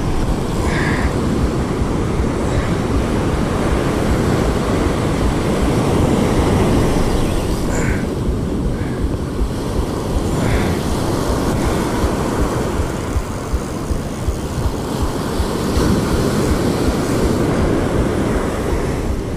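Surf breaking on the beach under a steady, loud rush of wind buffeting the microphone.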